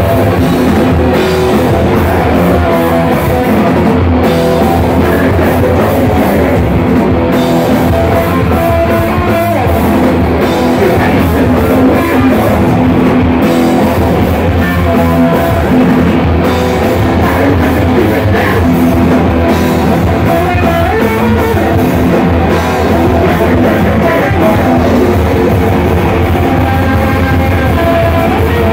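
Loud live rock band playing: electric guitar, electric bass and drum kit together.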